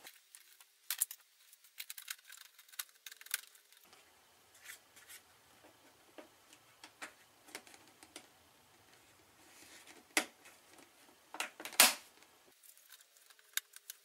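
Clear plastic collapsible storage box being handled: scattered plastic clicks and snaps from its latches and side doors being worked, with a few louder snaps near the end.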